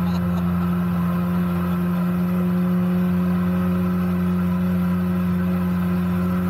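MotoJet mini jet boat under way at a steady cruising speed. Its engine holds one unchanging drone, with the rush of the jet and the water beneath it.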